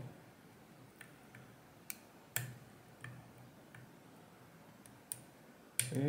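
Lock pick working the side pins of an ASSA Twin V-10 high-security cylinder under tension: a handful of faint, short metallic clicks at irregular intervals as the pick lifts pins and they set.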